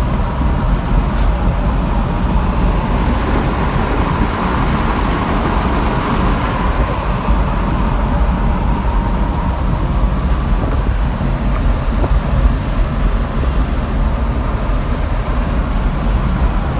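Inside the cab of a Ford F-350 with the 6.7 L Powerstroke turbo-diesel V8, cruising at about 60 mph: a steady, loud rumble of engine, tyre and road noise.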